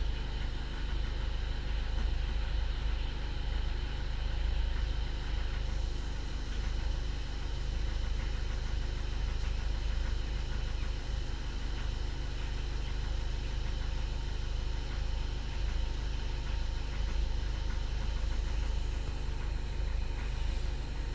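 Skoda Octavia A7's 1.6 TDI four-cylinder turbodiesel idling steadily as it warms up. It runs evenly, with little of the knock it makes when cold still there.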